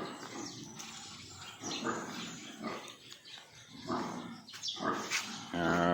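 Animals calling in short, repeated bursts, five or so over a few seconds.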